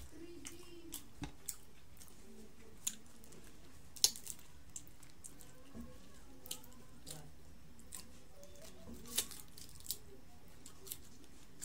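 Fried buttered shrimp being peeled by hand and chewed: scattered short, sharp crackles and clicks from the crispy shells, about one a second, two of them louder.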